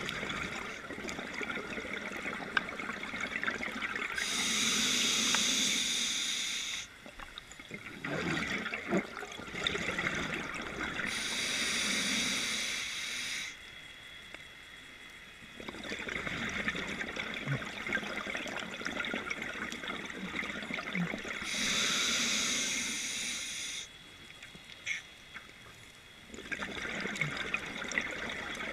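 A scuba diver breathing through a regulator underwater: three long hisses as air is drawn through the demand valve, alternating with the bubbling and gurgling of exhaled air rising away.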